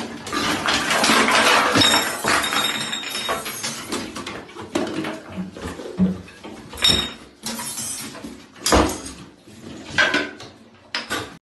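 Small hard objects clattering and clinking against hard surfaces: a dense clatter for the first few seconds, then several separate sharp knocks. The sound cuts off abruptly near the end.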